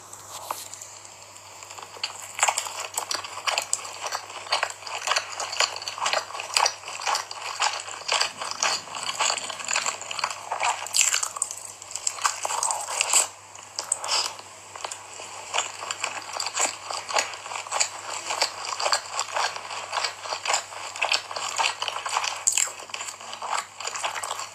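A person biting and chewing crunchy food, a dense run of crisp crunches that grows busier about two seconds in.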